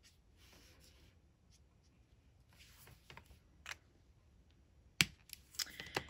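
Faint scratchy strokes of a Copic BG13 alcohol marker nib rubbing across cardstock, then a few sharp clicks near the end as the marker is handled and set down.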